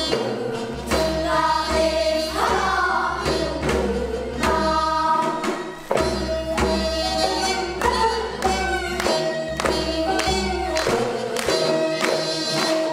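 Children's choir singing a Korean folk song (minyo) in unison, with percussion beating a steady rhythm.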